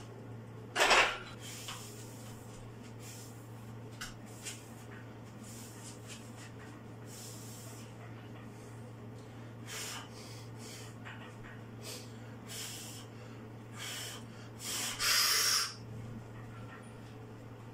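A lifter's strained breathing and forced exhales while holding a 201.5 kg barbell in the crook of his elbows, with a sharp loud burst about a second in and a longer hissing exhale near the end, over a steady low hum.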